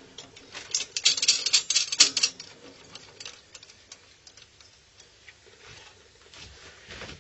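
Rapid clicking and rattling of the clamps of a board holder as a circuit board is clamped into place over a preheater, a dense run of clicks about a second in, then a few scattered lighter clicks.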